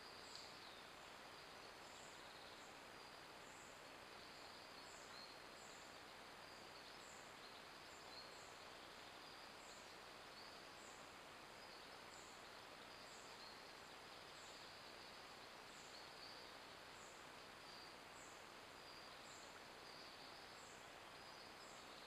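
Near silence: steady faint hiss of a trail camera's microphone in a forest, with a faint high chirp repeating about once a second.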